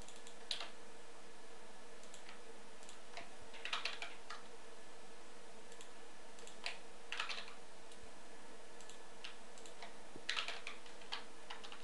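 Computer keyboard keystrokes in a few short, sparse groups of clicks, over a steady faint hum.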